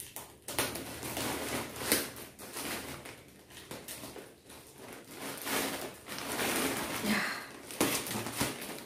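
A courier parcel being handled: irregular rustling and crinkling of its plastic packaging, with light knocks and scrapes.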